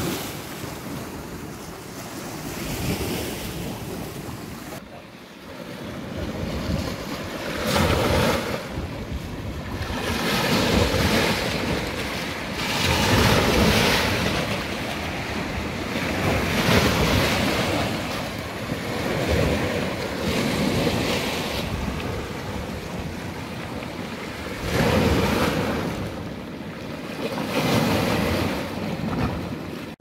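Rough, stormy Dead Sea waves breaking and washing over a rocky shore, the surf swelling and falling back every few seconds.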